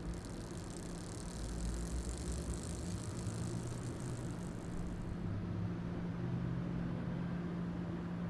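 A steady low mechanical hum, like an engine idling, with a high hiss laid over it that cuts off about five seconds in.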